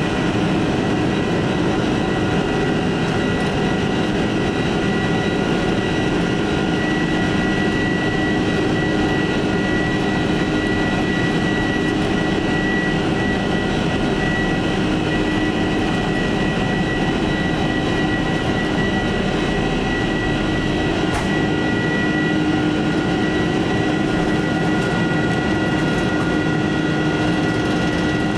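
Boeing 747-400's General Electric CF6-80C2 turbofans at takeoff thrust, heard inside the cabin over the wing during the takeoff roll. A steady, loud wash of engine and rolling noise with a constant low hum and a high fan whine running through it.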